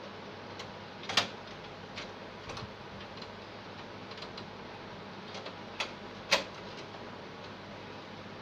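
Scattered small clicks and taps of computer hardware being handled, with two sharper clicks about a second in and about six seconds in, over a steady hiss.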